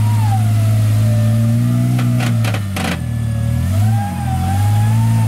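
Jeep Wrangler's engine held at high revs as it churns through deep mud, with a thinner whine wavering above the engine note. A few sharp knocks come a little after two seconds, then the revs drop briefly and climb back.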